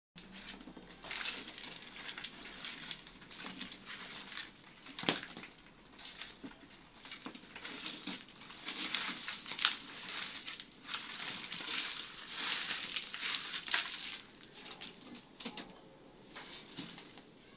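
Broken concrete and earth being scraped and pulled by hand out of an opened cemetery tomb niche, giving irregular gritty scraping and crumbling. A sharp knock of a chunk comes about five seconds in, and another a little before ten seconds.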